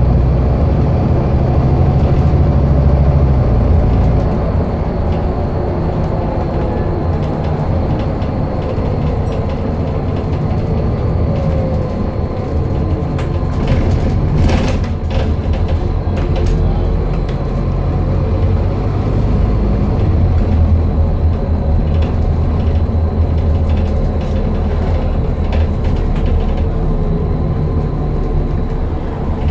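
Inside a Scania N230UD Enviro400 double-decker bus on the move: the five-cylinder diesel engine runs with road and tyre noise. The engine eases off about four seconds in and pulls harder again in the second half, with a few knocks from the body around the middle.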